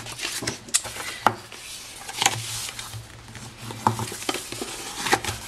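Cardstock being folded along its score lines and creased down by hand, with paper rustling and rubbing and several sharp clicks and ticks as it is handled on a scoring board, over a faint low hum.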